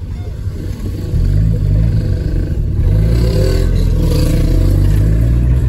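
A Chevrolet A20 pickup's six-cylinder alcohol engine running as the truck drives, heard from inside the cab. The engine note steps up about a second in and again around three seconds in, with no clunk or whine from the new gearbox.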